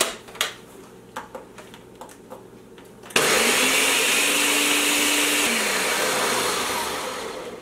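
A few clicks as the countertop blender's lid is fitted and its control pressed. About three seconds in, the blender motor starts abruptly and runs loudly, blending overripe bananas with a little water. Near the end its hum falls as the motor winds down.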